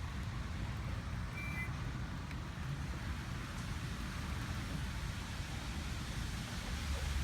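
A single short, high electronic beep from under the hood of a 2017 BMW 340i, about a second and a half in, over a steady low rumble.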